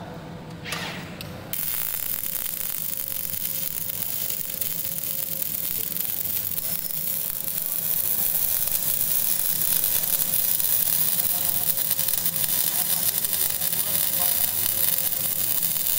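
Panasonic welding robot's arc striking suddenly about a second and a half in, then arc welding with a steady crackling hiss.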